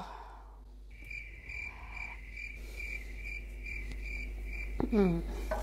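Cricket chirping sound effect: a steady high chirp repeating about twice a second. It starts abruptly about a second in and cuts off suddenly near the end, the stock comic cue for an awkward silence.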